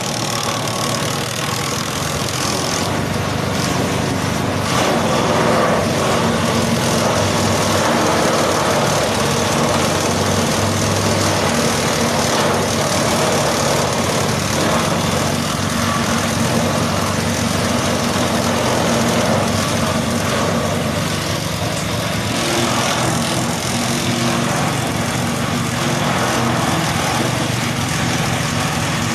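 Small stationary engine driving a forage chopper, running steadily under load while elephant-grass stalks are fed in and cut up.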